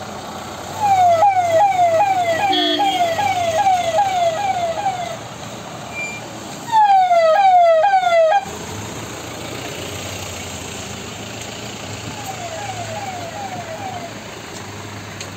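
Electronic siren on a police Mahindra Bolero sounding in runs of quick falling sweeps, about two and a half a second: one run of about four seconds starting a second in, a louder short run near the middle, and a faint one near the end. A short horn toot cuts in about two and a half seconds in.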